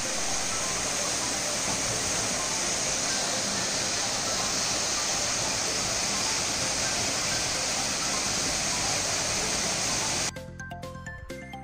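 Waterfall pouring down a rock gorge: a steady rushing hiss of falling water that cuts off abruptly about ten seconds in, giving way to background music.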